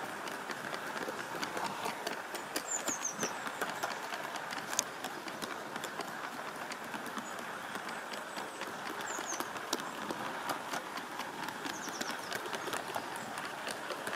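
Gauge 1 live steam model train, a Bowande QJ locomotive hauling its rolling stock, running with a steady clatter of many short clicks. A bird chirps now and then.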